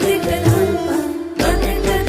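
Background music: an Indian-style song with singing and a steady beat.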